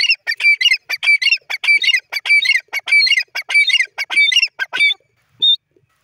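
Grey francolin calling: a loud, rhythmic run of shrill repeated notes, about two a second, that stops about five seconds in, then one short note.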